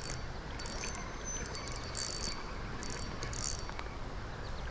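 Insects buzzing in several short high-pitched bursts, each under a second long, over a low steady rush.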